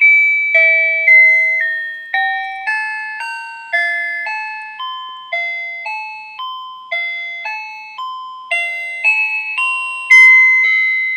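A talking calculator's built-in music box playing a tune in electronic chime notes, each note starting sharply and fading, about two notes a second.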